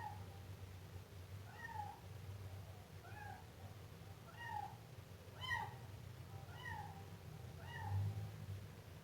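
Siamese kitten meowing repeatedly, about seven short rising-and-falling meows, one roughly every second and a bit.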